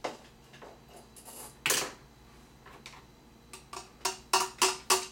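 A marker tapped against a small plastic container. There is one louder knock about a second and a half in, then a quick run of about six taps near the end, roughly four a second.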